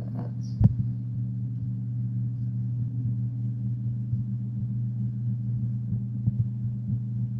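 A steady low hum, with a sharp click about half a second in and a few faint ticks after it.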